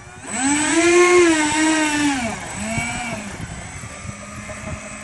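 Ducted fans of a giant-scale scratch-built RC Boeing 737-300 model spooling up to a loud whine that rises and holds for about two seconds. The whine then falls away, swells briefly once more, and settles to a lower steady whine as the model starts rolling down the runway.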